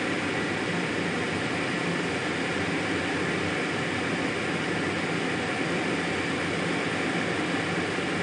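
Jet engine and rushing air heard from inside the closed cockpit of a two-seat jet in flight: a steady, even rush with a faint steady hum under it, unchanging throughout.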